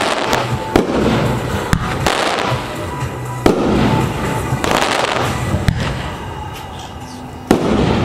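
Consumer aerial fireworks going off: a sharp bang every second or two, each followed by a fading crackle and hiss as the white stars spread and burn out.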